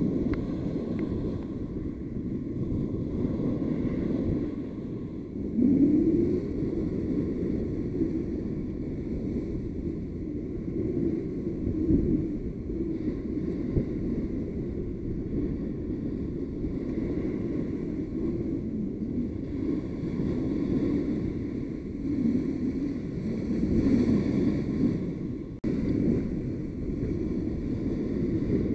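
Wind rumbling on the microphone over small waves breaking and washing up the beach, swelling and easing every few seconds.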